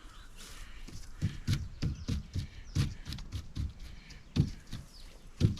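A string of irregular light knocks and taps from boards being handled and shifted into position, with two louder thumps near the end.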